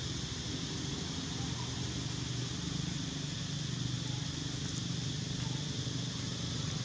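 Steady outdoor background: a continuous high hiss over a low, even hum, with no distinct events.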